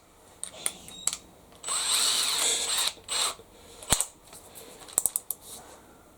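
Ratcheting clicks and a brief rasp from a Makita cordless drill's keyless chuck being worked by hand, with scattered clicks and a sharp knock of the tool being handled.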